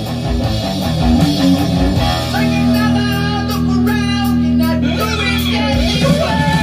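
Rock music with electric guitar played very loud through a hi-fi system, AGD Production Audion monoblock amplifiers driving floor-standing speakers, heard in the room. The owner hears no distortion at all at this volume.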